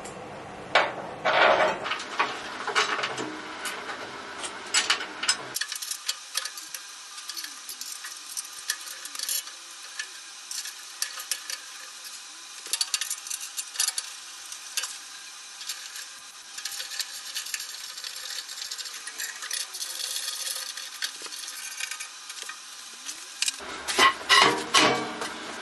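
A socket ratchet clicking in quick runs, with sharp metallic clinks of tools and bolts, as the wheel kit is bolted onto the bandsaw's steel base.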